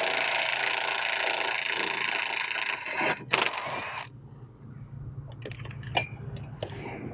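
A ratchet with a 15 mm socket spun rapidly on a sway bar link nut, a dense clicking rattle that stops suddenly about four seconds in. After it come a few light metallic clicks and clinks as the tools and the loosened nut are handled.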